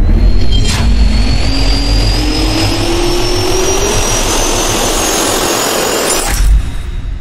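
Jet-turbine spin-up sound effect: a whine rising steadily in pitch over a loud rumble. There is a sharp hit about a second in and another near the end, where the whine cuts off and the rumble fades.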